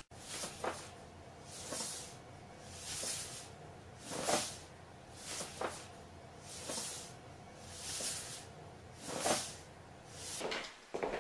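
Rhythmic hissing from an animal hidden inside a paper bag, about one hiss a second.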